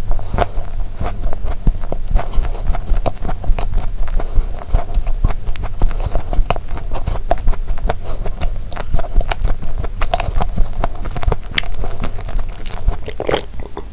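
Close-miked chewing of a soft-filled sandwich cookie (Korean 'sand cookie'), a rapid, irregular run of wet mouth clicks and smacks.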